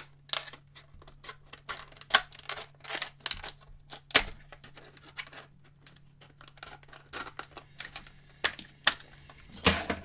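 Scissors cutting through a stiff clear plastic blister pack: a string of irregular sharp snips, with the plastic crackling in between.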